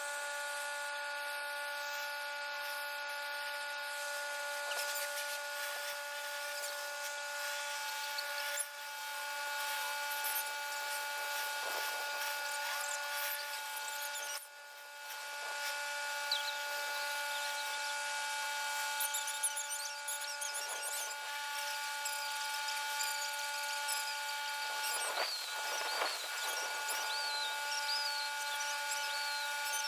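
Pressure-washing equipment running steadily, a machine whine made of several held tones, briefly dipping twice.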